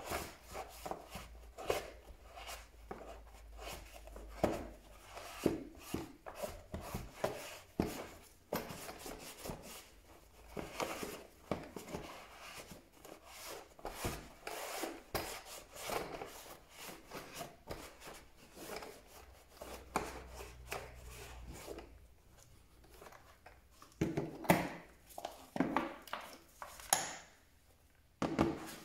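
Hand scrubbing and rubbing on the plastic housing of a Parkside PSBM 500 B3 hammer drill during cleaning: irregular scraping strokes mixed with small handling knocks. A few louder knocks come near the end.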